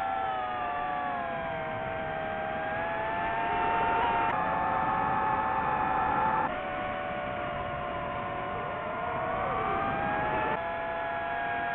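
DJI FPV drone's motors and propellers whining, several tones gliding up and down in pitch as the throttle changes, with abrupt shifts in pitch three times.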